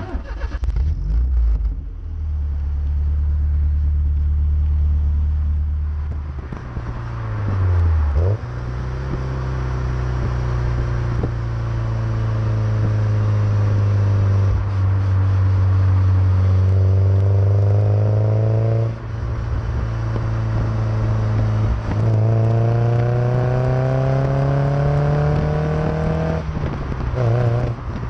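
Porsche 944 NA's four-cylinder engine heard right at the tailpipe of its 3-inch custom exhaust with twin Simons mufflers, driven on the road. A low exhaust note holds steady at first, then climbs in pitch under throttle in several long pulls, dropping back abruptly between them as the revs fall at gearchanges or lifts.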